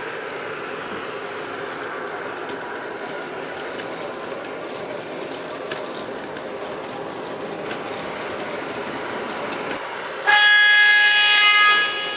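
MTH R40 subway model train running along its track with its DCS sound system playing the subway car's running sound, steady for about ten seconds. Then a loud horn blast from the sound system, about two seconds long.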